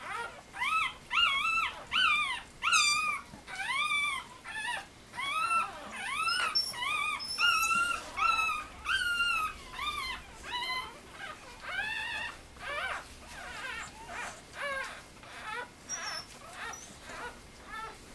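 One-day-old Scottish Terrier puppies crying with repeated short, high-pitched squeaking whimpers, one or two a second. Each cry rises and falls in pitch, and the cries grow fainter toward the end.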